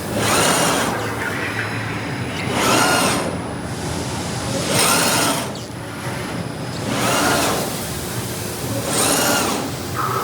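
A full-electric CNC press brake cycling its ram: five strokes, about one every two seconds. Each stroke is a rush of noise with a motor whine that rises and then falls in pitch as the servo drive speeds up and slows down.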